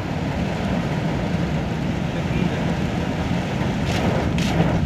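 Steady heavy rain with a low rumble under it and wind on the microphone.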